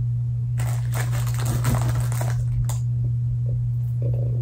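Crinkling and small clicks of a plastic container and decorations being handled while gingerbread cookies are decorated, over a steady low hum.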